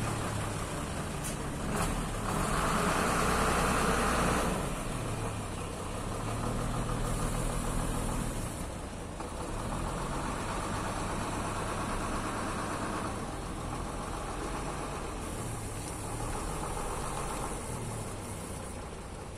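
A bus's diesel engine idling steadily, under a rushing noise that swells and fades every few seconds.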